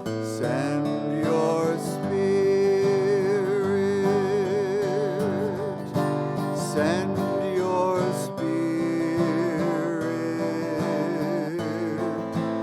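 A singer sings a slow hymn with long held notes and wide vibrato over strummed acoustic guitar accompaniment.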